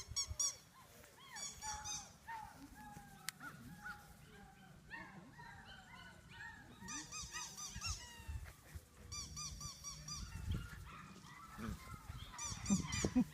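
Labrador puppies squealing and whining in many short sliding yelps during a tug-of-war. Bursts of rapid, evenly repeated high chirps come and go several times.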